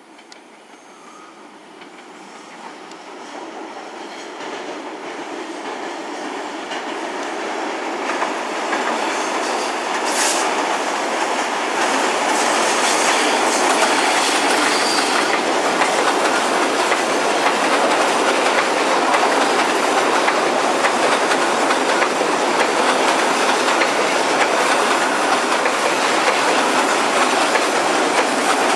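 Diesel-hauled passenger train crossing a steel truss bridge on a curve, its wheels clattering over the rail joints. The rumble grows louder over the first dozen seconds as the train approaches, then holds steady as the carriages roll past, with one brief sharp high-pitched sound about ten seconds in.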